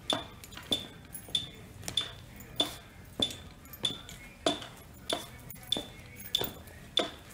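A phone metronome app beeping steadily, a short high beep about every 0.6 seconds, setting the stepping cadence for a step test. In time with each beep, sneakered feet thud on the step as a person steps up and down.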